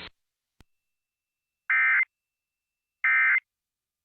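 Emergency Alert System end-of-message (EOM) data bursts: after a faint click, two identical short digital warbling tone bursts about a second and a half apart, the coded signal that closes an EAS alert.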